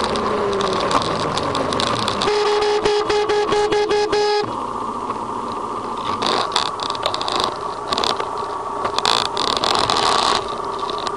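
Moving-vehicle road and traffic noise, with a horn sounding one steady note for about two seconds a couple of seconds in, and scattered crackles later on.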